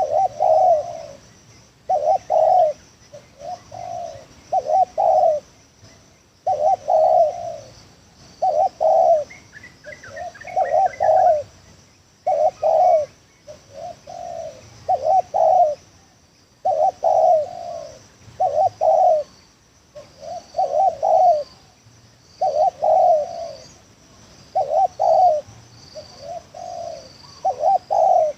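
Spotted dove cooing: a phrase of four or five low, mellow coo notes, repeated about every four to five seconds. A brief high twitter from a small bird comes about ten seconds in.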